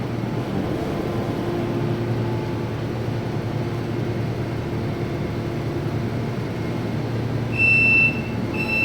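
Skid steer's diesel engine running steadily. Near the end, its backup alarm gives two short high-pitched beeps.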